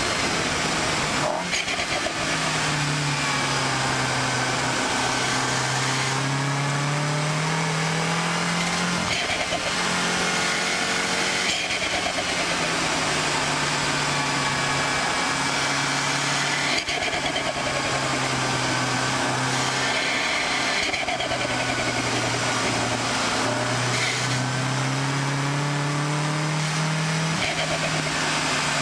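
2014 MINI Cooper S's turbocharged 2.0-litre four-cylinder engine on track, pulling hard, its pitch climbing and dropping again and again with throttle, gear changes and braking for corners, over steady road and wind noise.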